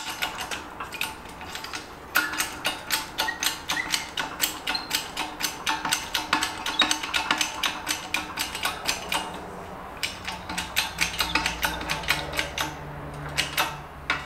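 Hydraulic bottle jack on an H-frame shop press being hand-pumped, a steady run of metallic clicks and clacks from its handle and pump. The ram is being driven down onto a socket to press a wheel hub out of its bearing.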